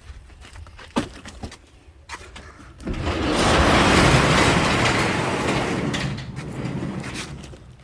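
A large shop door being slid open: a click about a second in, then a long, loud rumbling slide that swells and fades away over about four seconds.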